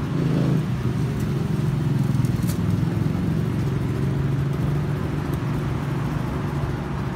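A steady low mechanical hum, with a faint click about two and a half seconds in.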